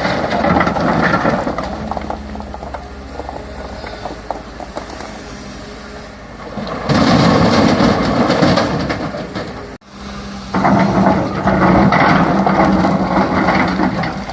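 CAT 320 hydraulic excavator working: its diesel engine and hydraulics run continuously, growing louder and harsher in spells as it works under load. The sound cuts out abruptly for an instant about ten seconds in.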